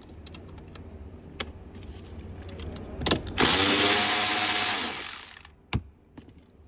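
Cordless power tool with a 10 mm socket running for about two seconds to remove the door checker's nuts, its motor whine dropping as it slows to a stop; a few clicks of the socket and tool handling before and after.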